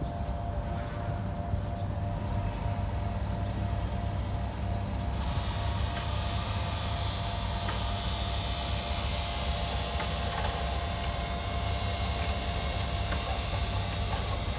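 Heavy diesel earthmoving machinery running steadily: a low engine rumble with a steady whine above it and faint clicks, joined about five seconds in by a loud hiss that holds.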